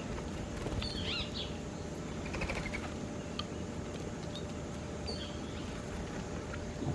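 Songbirds chirping: a squiggly burst of chirps about a second in, a quick trill of repeated notes around two and a half seconds, and a few more chirps near five seconds, over a steady low background rumble.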